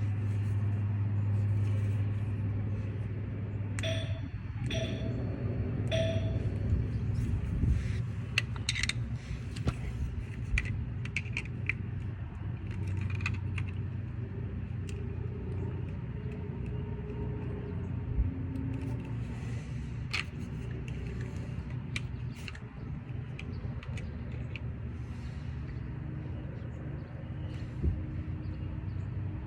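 Low steady hum, with three short electronic beeps about four to six seconds in, followed by scattered sharp clicks and light rattling, as of small hard parts being handled.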